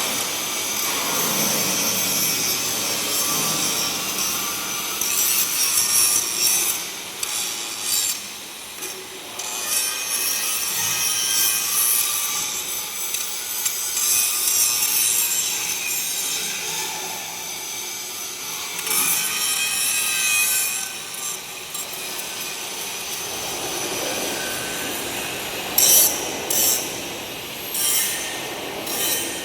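Angle grinder grinding a steel hand railing, a harsh rasping noise that swells and eases as the disc is pressed on and eased off the metal.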